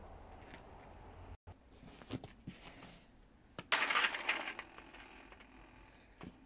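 A few light clicks and knocks, then a louder crunching clatter just before four seconds in that dies away over about a second: a stand fan's plastic parts and wire grille being knocked about as it is broken apart.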